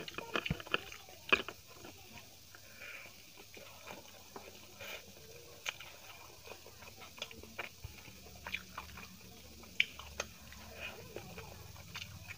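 Close-miked eating sounds of chicken biryani eaten by hand: chewing with sharp wet mouth clicks, and fingers pulling chicken apart and working the rice on the plate. A quick run of clicks in the first second and a half, then scattered single clicks.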